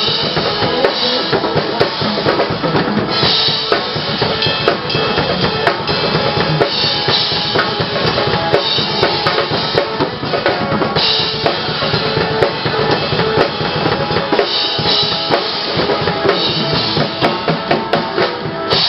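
Drum kit played live to a pop backing track: steady kick and snare hits with cymbal wash over full-band music.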